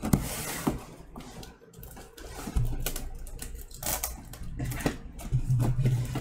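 Box cutter scoring and slitting packing tape on a cardboard box, with irregular clicks, scrapes and cardboard rustling. Near the end the cut strip of tape is pulled up from the box.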